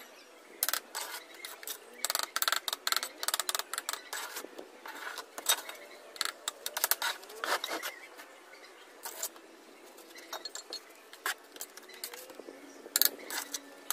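Bricklaying: a steel trowel scraping and tapping mortar while hollow clay bricks are set on the wall, a run of short scrapes and sharp clicks, thickest in the first half.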